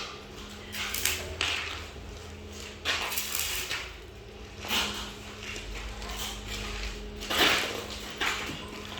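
Arc welding in short tacks: several brief bursts of hissing crackle from the welding arc, irregularly spaced, over a steady low electrical hum.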